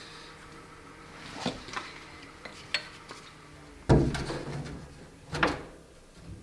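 Metal tools and car parts clinking and knocking: a few light clinks, then two louder knocks past the middle.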